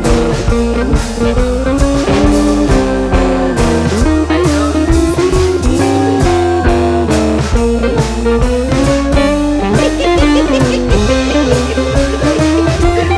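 Background music: a blues-style guitar melody over drums.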